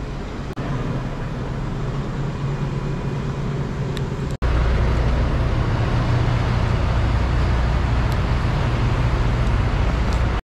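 A steady low hum, then after a sudden cut about four seconds in, a louder steady low rumble of a semi truck's diesel engine idling.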